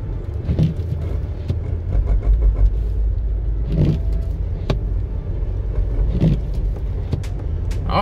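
Jeep driving slowly up a snow-covered hill, heard from inside the cabin: a steady low rumble of engine and tyres on snow that swells a couple of seconds in, with a few short knocks.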